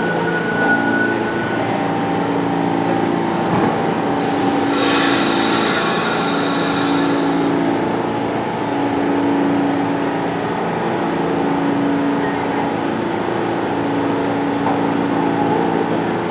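Subway train pulling into the station and braking to a stop, with a high-pitched squeal lasting about three seconds from around four seconds in, then standing at the platform with doors open and a steady hum.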